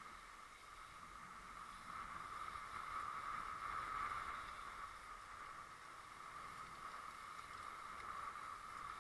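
Steady muffled rushing noise of a fishing boat under way on choppy sea, swelling a little in the middle.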